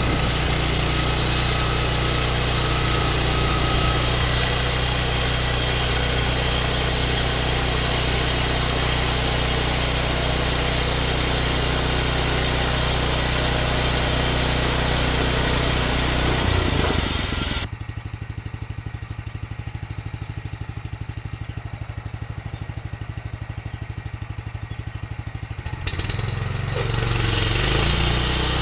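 Vallee Big Red sawmill's engine running steadily, then dropping suddenly to a lower, slower idle about two-thirds of the way through, and picking up again near the end.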